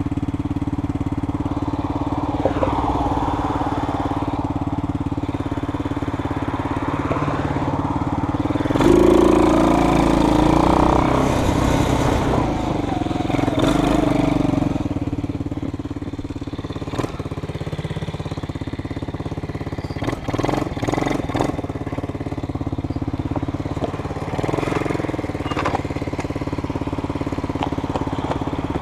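A vehicle engine running steadily, growing louder for several seconds about nine seconds in. A few sharp clicks come around twenty seconds in.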